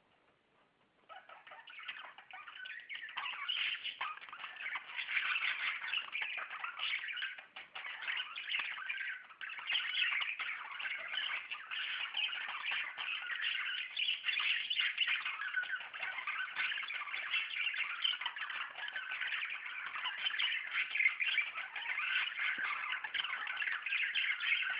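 Several budgerigars chattering and chirping at once in a dense, continuous warble that starts about a second in.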